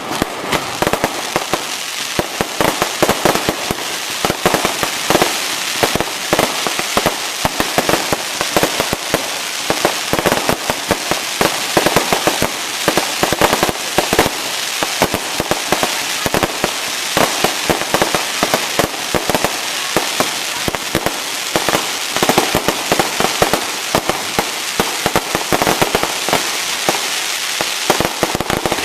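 Fireworks display in a dense, unbroken barrage: many bangs in quick succession over continuous crackling.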